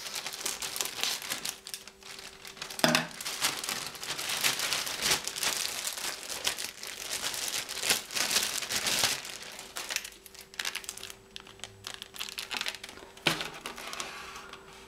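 Clear plastic bag crinkling and rustling as it is opened and a plastic toy figure is pulled out, with a couple of sharp taps about three seconds in and near the end.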